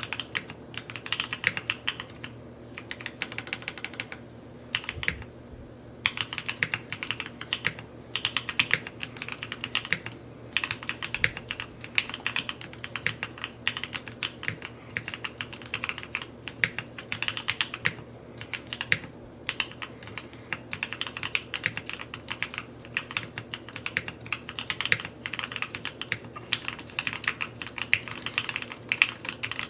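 Continuous typing on a Neo65 Cu mechanical keyboard: fast runs of keystroke clacks with a few short pauses between bursts.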